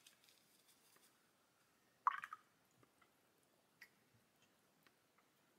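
Mostly near silence, broken about two seconds in by a brief scratchy rustle as a wet paintbrush is wiped across a paper towel, then a few faint ticks.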